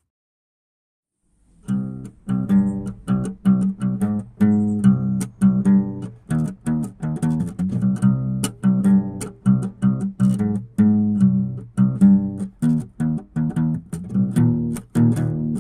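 Background music of plucked guitar notes in a quick, even rhythm, starting after about a second and a half of silence.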